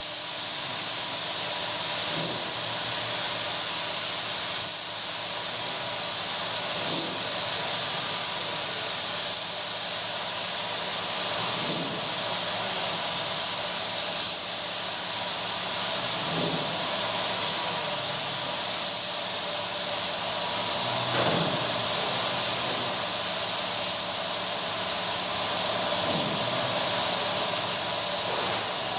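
Compressed-air spray gun hissing steadily as it sprays a coat of lacquer onto a wooden door, with a faint pulse about every two and a half seconds.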